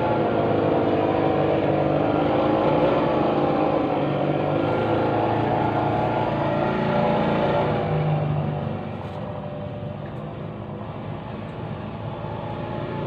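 Engine of grass-cutting street-maintenance equipment running steadily with a wavering pitch, dropping noticeably quieter about two-thirds of the way through.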